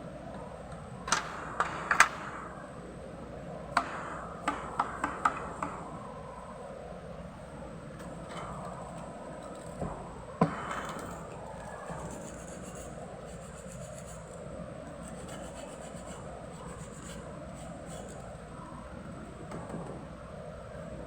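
Sharp clicks and taps from PVC plastic pieces being worked by hand: a few near the start, a quick run a few seconds in, and one more about halfway, over a steady low background hum.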